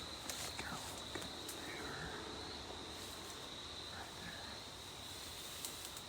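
Quiet outdoor ambience: a steady high-pitched trill runs throughout, with a few faint bird chirps and scattered soft clicks of twigs or footsteps.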